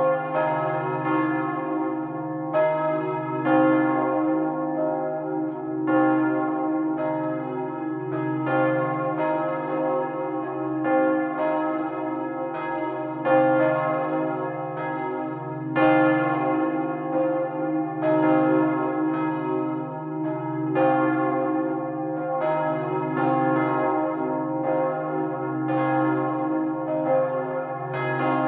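Two swinging bronze church bells, tuned to C and E-flat, ringing in full swing, heard close up from inside the belfry. Their strikes fall about once a second in an uneven interleaved rhythm, and each stroke's overtones ring on over a continuous low hum.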